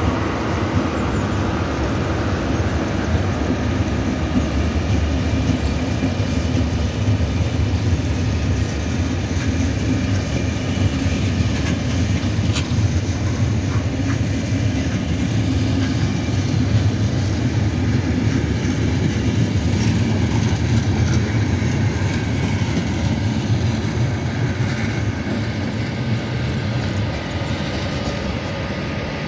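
A departing international passenger train's coaches rolling past behind a class 350 electric locomotive: a steady rumble of wheels on rail, with a few faint clicks.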